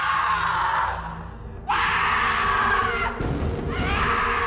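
A woman screaming: three long, anguished screams with short breaks between them, over low, steady background music. A dull thud about three seconds in.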